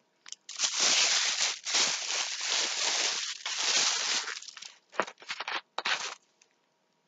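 Protein bar wrapper crinkling for about four seconds, then a few short rustles near the end.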